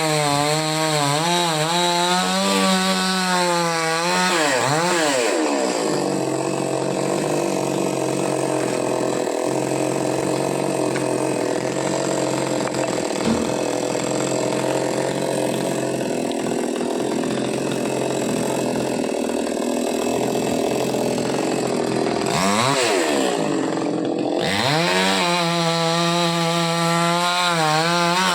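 Chainsaw cutting a coconut tree, its engine running continuously. The revs waver high at first, settle to a lower, steadier speed for a long middle stretch, then swing up and down again near the end.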